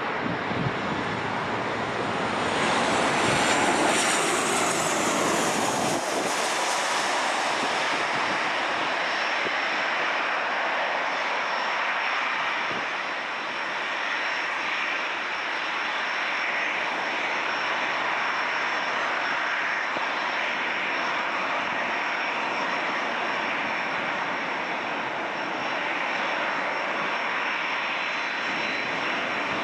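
Boeing 737-900ER's CFM56-7B turbofan engines passing low overhead on landing approach: a loud high whine that falls in pitch a few seconds in as it goes by, then a steady jet noise as the airliner lands and rolls out down the runway.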